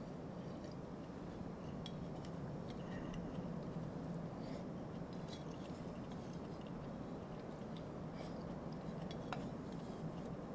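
A person eating from a metal mug: small scattered clicks of a utensil against the mug and chewing, with a sharper click about nine seconds in. Under it runs a steady low background rumble.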